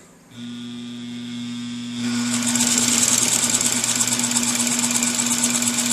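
1930s Universal electric sewing machine starting up: its motor hums steadily, then about two seconds in it speeds up into a fast, even clatter of the needle mechanism as it sews, running smoothly.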